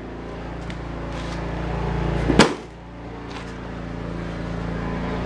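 ATV buggy engine idling steadily, growing gradually louder, with one sharp knock about halfway through.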